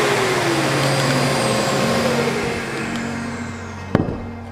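A workshop machine's motor and fan winding down after being switched off, its whirring falling in pitch and fading. Near the end, two sharp wooden knocks as cut wooden pieces are set down on the workbench.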